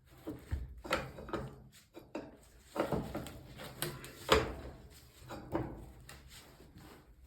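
Irregular metal knocks and clicks of a wrench being worked on a plumbing fitting, tightening it hard; the loudest knock comes a little past the middle.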